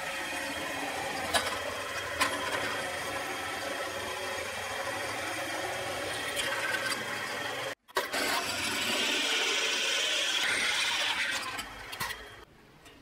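Electric drill running as it bores through thick steel, with two sharp clicks a second or two in. The sound breaks off abruptly just after halfway and comes back louder with a hissy cutting sound, then stops near the end.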